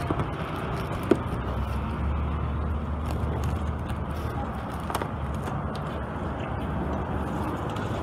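Steady outdoor background noise of road traffic, with a vehicle's low rumble swelling about two seconds in and fading a couple of seconds later. There are two light knocks, one about a second in and one about five seconds in.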